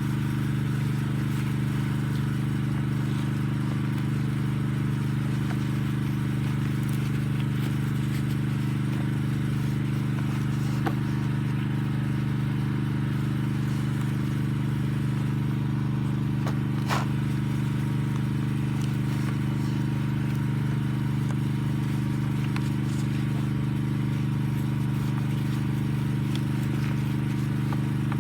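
Suzuki Address V50 moped scooter engine idling steadily, an even hum that does not change, with a couple of faint clicks about 11 and 17 seconds in.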